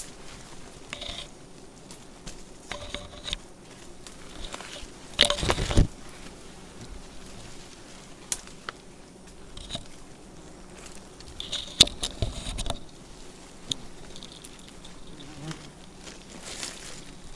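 Bees buzzing around, coming and going, over close rustling and knocking of branches and leaves being handled. The handling is loudest about five seconds in and again around twelve seconds.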